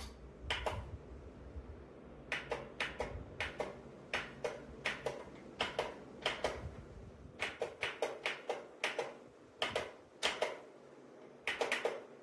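A series of short, irregularly spaced light clicks and taps, about twenty of them, some in quick pairs and triples, over a quiet background.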